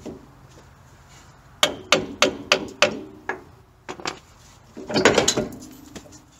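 Metal clanks and knocks as a heavy front strut assembly is worked out of its mount and pulled out past the steering knuckle: a quick run of knocks about a second and a half in, then a louder clatter about five seconds in.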